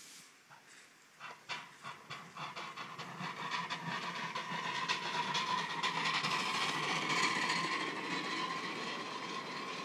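A 5-inch gauge live steam locomotive pulling away with a train: its exhaust beats start about a second in and quicken as it gathers speed, over a rising hiss of steam and the clatter of the cars on the rails. From about four seconds a steady high tone sounds with it.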